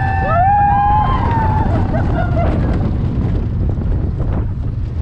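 Rushing wind on the microphone and the rumble of a roller coaster train running along its track, with a rider's long scream in the first second or so.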